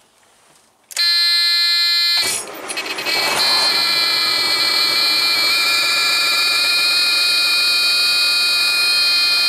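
Truck dashboard warning buzzer sounds loud and steady at key-on, about a second in. A second or so later the Detroit Series 60 diesel cranks and starts, and the buzzer keeps sounding over the idling engine until it cuts off suddenly at the end.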